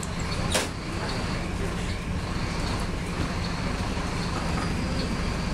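Marcopolo Torino city bus running, its diesel engine droning steadily, with a sharp knock about half a second in and light rattles throughout.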